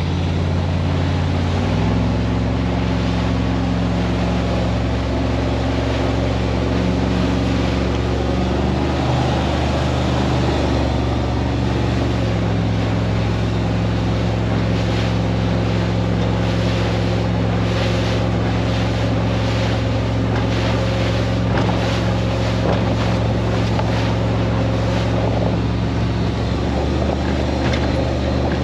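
27-foot Baja powerboat's engine running steadily underway, its note shifting a few times as the throttle changes. Wind and water rush past the whole time, with a run of short slaps midway as the hull meets the chop.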